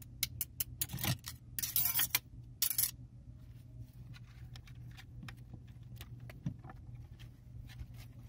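Steel parts of a 6T45 automatic transmission's clutch pack clinking and jingling against each other as they are handled. A burst of sharp clinks and short rattles comes in the first three seconds, then lighter, scattered clicks.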